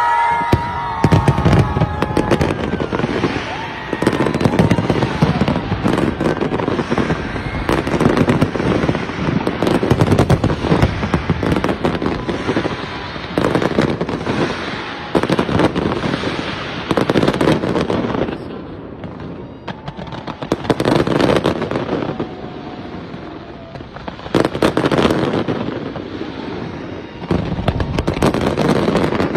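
Large fireworks display: dense, continuous bangs and crackling of aerial shells going off in rapid succession, easing in two brief lulls in the second half before building again.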